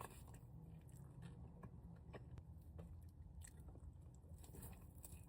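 Faint chewing and biting on chicken wings, with scattered soft clicks of the mouth and food.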